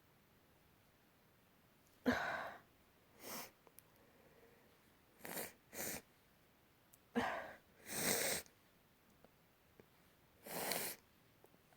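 A person sneezing over and over: about seven short, sharp bursts with quiet gaps between them, the loudest about two seconds in and again around seven seconds in.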